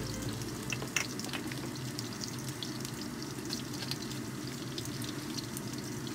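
Pork belly pieces sizzling in fat in a cast-iron skillet, a steady frying hiss with scattered crackling pops of spitting fat, one sharper pop about a second in.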